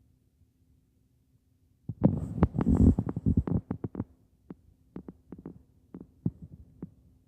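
A quick run of loud, dull thumps and knocks about two seconds in, then scattered single clicks and knocks, over a faint steady hum.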